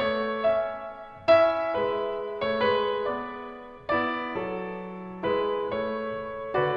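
Background piano music: slow, gentle chords and notes struck every half second to a second, each ringing and fading before the next.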